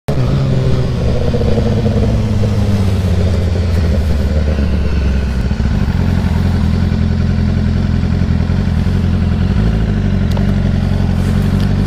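BMW S1000RR sportbike's inline-four engine running under the rider while cruising slowly in city traffic. It makes a low, steady engine note with small shifts in pitch.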